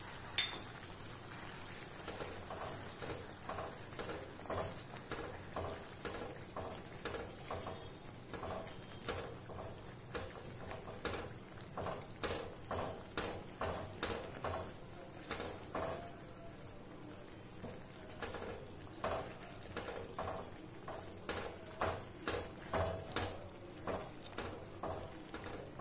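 Wooden spatula stirring thick rava kesari in a nonstick pan, scraping in rhythmic strokes of roughly one and a half a second over a light sizzle, with a sharp knock near the start. The stirring is constant to keep the semolina from catching on the bottom as it thickens.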